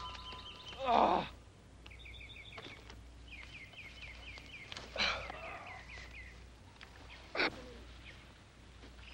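A man's groan, falling in pitch, about a second in, as he lies crash-landed in a bamboo glider. Then a bird chirps a rapid run of short repeated notes over quiet outdoor ambience, with another short sound around five seconds and a brief sharp one near the end.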